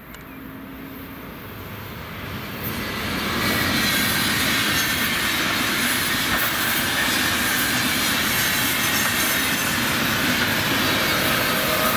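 An Intercity passenger train of coaches and a red electric locomotive running past on the track. The rush and rumble of wheels on rails grows over the first three or four seconds and then holds steady, with a thin high whine above it.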